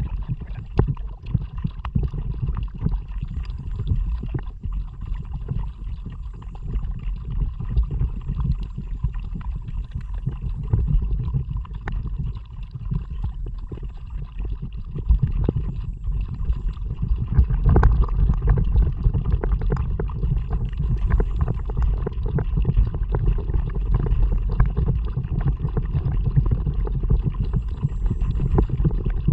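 Water sloshing and splashing around a kayak under way, over a low, uneven rumble of wind on an action camera's microphone; it grows louder about halfway through.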